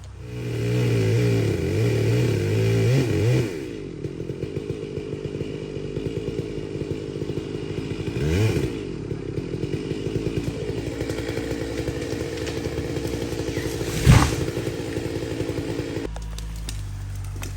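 Two-stroke Stihl chainsaw revved high for about three seconds, then dropping to a pulsing idle with a short rev blip partway through. A single sharp knock comes near the end, and the idle cuts out shortly before the end.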